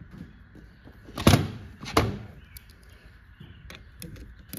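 Hand tools being handled: a sharp metallic clunk about a second in, then a duller thud about half a second later.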